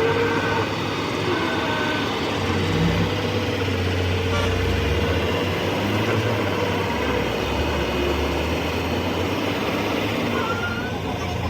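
Heavy truck engine running steadily with a low hum, over traffic noise.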